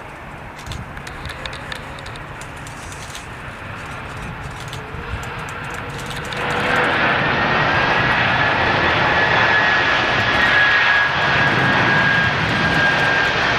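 Boeing 767 jet engines running, a steady rush that builds and then gets sharply louder about six seconds in, with a steady high whine over it.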